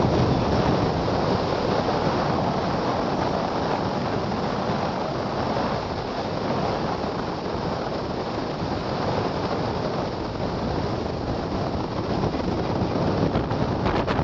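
Wind buffeting the microphone of a camera mounted on a car moving at about 55–60 km/h, mixed with the car's road noise: a steady, heavy rush.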